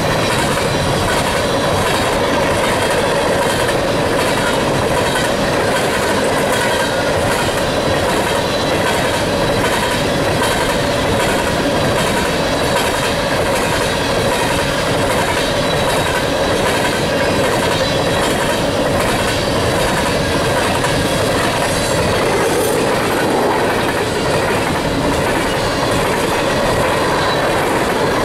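Empty coal gondolas of a freight train rolling past at speed: steady rumble and rattle of steel wheels on the rail, with a regular clickety-clack. Thin steady squealing tones from the wheels run through it.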